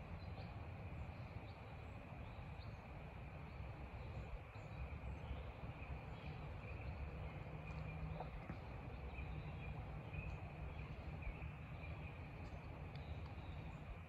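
Faint woodland ambience: a steady high drone from insects, with scattered faint short bird chirps and a low rumble underneath.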